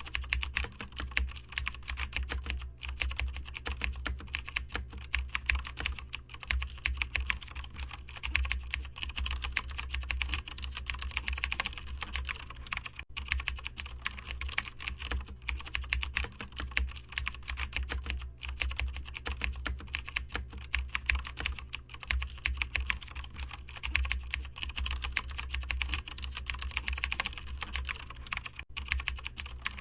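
Continuous rapid typing on a computer keyboard: dense, steady key clicks with a few split-second pauses, over a low steady hum.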